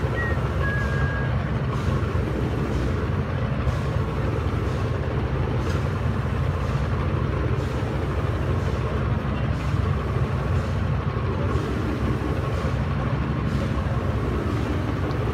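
Steady low rumble of offshore drilling-rig machinery running without a break, with a couple of short high whistle-like tones in the first second and a half.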